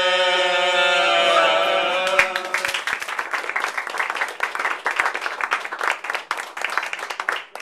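A small group of amateur singers holds the last sung note of a song for about two seconds, then a room of people applauds for about five seconds, the clapping fading near the end.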